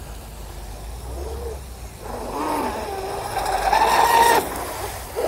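Veles 29 RC catamaran's brushless electric motor and propeller whining at speed, growing louder over a couple of seconds and cutting off suddenly about four seconds in. The strut is set high, with less propeller blade in the water, which gives the boat a different sound.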